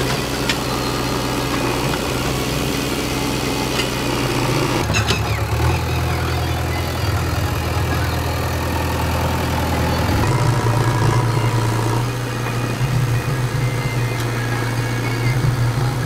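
JCB 3DX backhoe loader's diesel engine running as the machine works among rocks, a steady drone that changes abruptly a few times.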